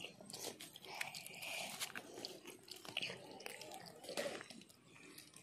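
Faint irregular crunching and crackling of crisp fried fish being broken apart with the fingers and chewed.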